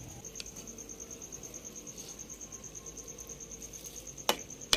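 A cricket chirping in a steady, fast, even pulse, about ten pulses a second. Near the end, two sharp clinks of a metal spoon against the aluminium cooking pot.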